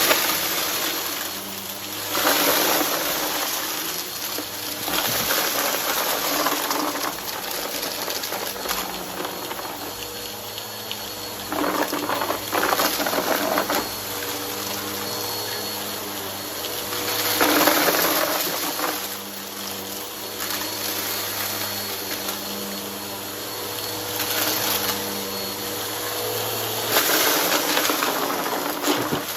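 Vacuum cleaner with a brushroll running steadily, with several louder surges of crunching as it sucks up a pile of dry debris.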